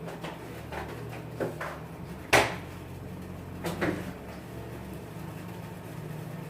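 Kitchen handling sounds: a few short knocks and clinks of utensils or containers, the loudest about two and a half seconds in, over a steady low hum.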